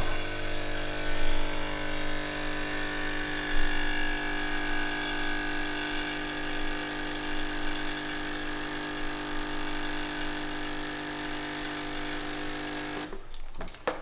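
Motor-driven suction pump drawing brake fluid out of the brake master cylinder's reservoir, running with a steady hum and cutting off about a second before the end.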